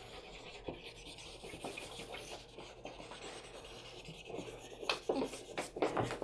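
Chalk pastel stick scratching and rubbing across paper in quick short strokes, with a few louder scrapes near the end.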